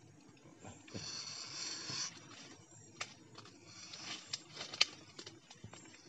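Hands tying and setting a wooden bird cage in place with string: a short rustle about a second in, then a few sharp light clicks, the loudest near the end.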